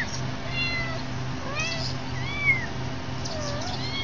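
Kitten mewing repeatedly: several short, high calls that rise and fall in pitch, the loudest about two and a half seconds in.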